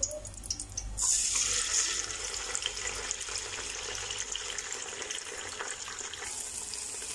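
Beaten eggs hitting hot oil in a pan: a steady sizzle starts suddenly about a second in and carries on as the eggs fry and are stirred.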